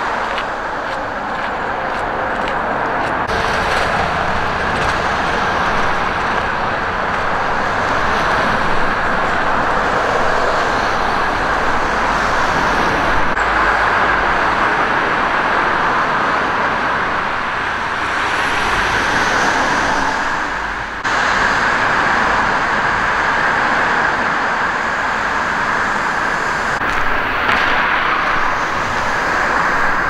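Steady outdoor roar, an even continuous noise with no distinct events, briefly dipping about 21 seconds in.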